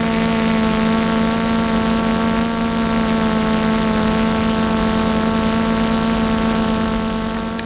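Y6 multirotor's six brushless motors and propellers droning steadily in flight, with a thin high whine over the drone; the sound drops off near the end.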